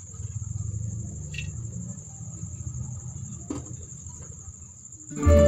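Cooking oil poured in a thin stream into a metal wok, a soft low pouring noise, over a steady high-pitched cricket chirr; background music comes in near the end.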